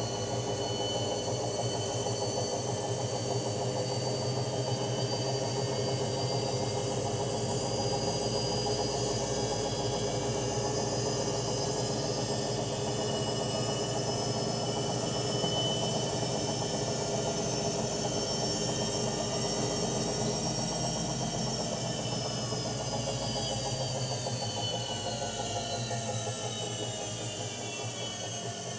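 Electrolux TimeSaver top-loading washing machine in its spin cycle: a steady motor whine with drum hum. The pitch starts falling about three-quarters of the way through as the drum begins to slow.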